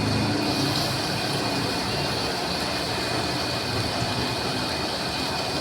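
Lathe running steadily, a constant machine noise with a steady high-pitched whine over it.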